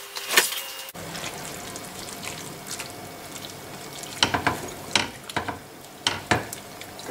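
Chicken livers with carrots and onions sizzling in a frying pan, a steady soft hiss. From about four seconds in, a silicone spatula stirs them, scraping and knocking against the pan several times.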